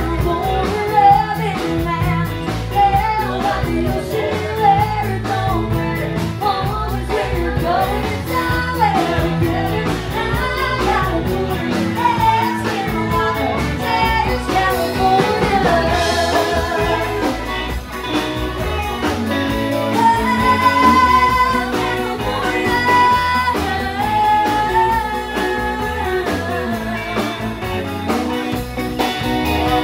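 A woman singing a country song into a microphone over a live band with guitar.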